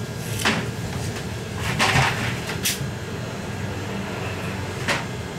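Steel knife blades scraping against each other as one knife is honed on another: four sharp swipes, the loudest about two seconds in, over a steady low background hum.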